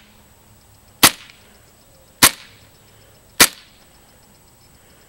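KWA KZ.61 Scorpion gas blowback airsoft gun firing three single shots about a second apart, each a sharp crack of gas blowback with a short tail.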